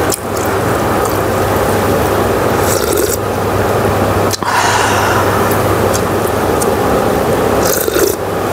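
Spicy webfoot octopus and pork belly sizzling in a hot pan, a steady loud sizzle with a low hum underneath and a few light scrapes and clicks; it breaks off briefly about four seconds in.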